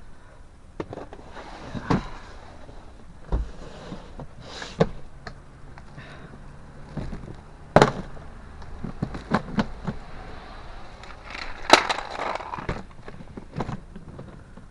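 Irregular knocks and clatters of plastic bread trays being handled and stacked, with the loudest hits about 8 and 12 seconds in.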